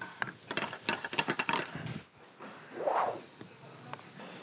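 Kitchen clatter: a quick run of clicks and knocks from utensils and pans, then a short whoosh that swells and fades about three seconds in.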